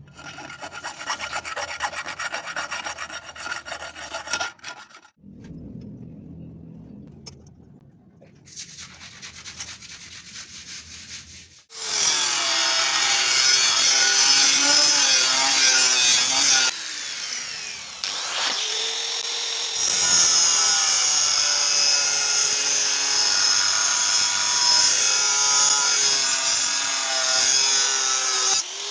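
Rasping and rubbing on wood for the first few seconds. About twelve seconds in, a grinder-driven DIY circular saw starts cutting wood, loud, its whine wavering in pitch under load. It eases off briefly near the middle, then cuts again.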